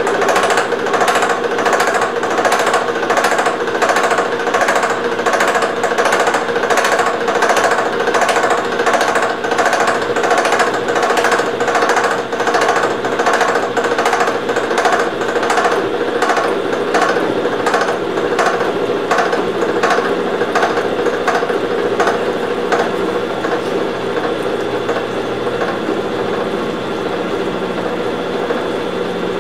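A milling machine's involute gear cutter is cutting a tooth space in a spur gear built up with silicon-bronze TIG weld, under power feed. It makes an even, rhythmic knocking chatter over a steady machine hum, the sound of an interrupted cut taken conventionally rather than climb-milled. The knocking eases off over the last few seconds.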